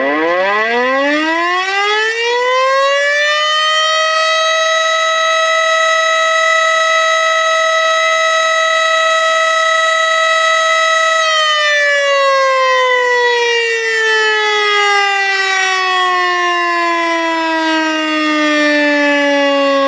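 Tornado warning siren winding up from a low pitch to a high wail over about three seconds and holding it steady, then slowly winding back down through the second half.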